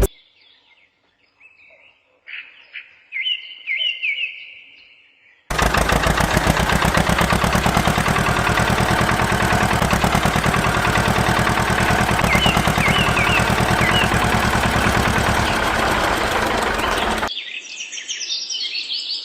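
Birds chirping. About five seconds in, a loud motor starts running with a fast, even rattle, and it cuts off shortly before the end, leaving the birds again.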